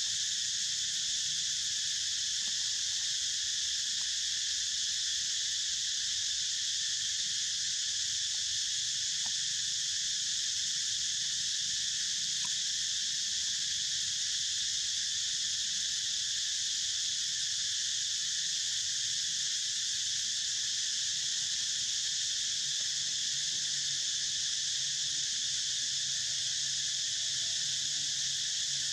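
Steady, high-pitched insect chorus, an unbroken drone with no pauses.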